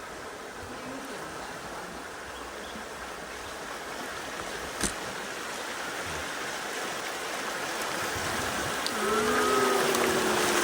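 River water rushing steadily past a bamboo raft, growing louder toward the end. A single short knock comes about five seconds in.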